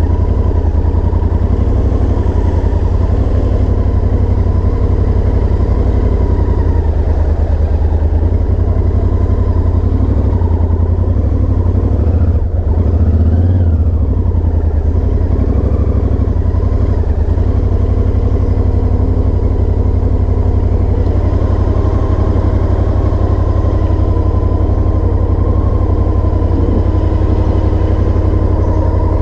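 Honda XL1000V Varadero's V-twin engine running as the motorcycle rides slowly over dirt tracks, steady throughout, briefly louder about halfway through.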